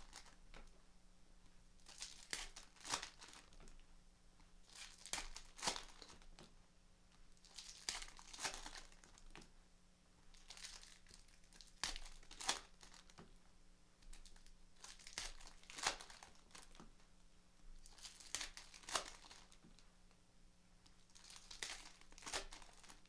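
Foil wrappers of 2017 Bowman Platinum baseball card packs being torn open and crinkled one after another, a short burst of crinkling every two to three seconds.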